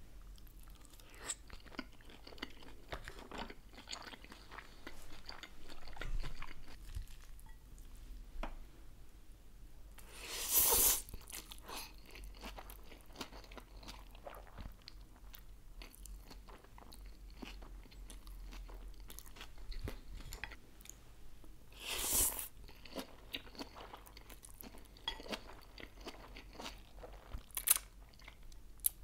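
Close-up mouth sounds of eating: a dumpling being chewed with many small wet clicks, then noodles from a cold noodle salad being slurped off chopsticks, with two louder slurps about ten seconds in and again about twenty-two seconds in.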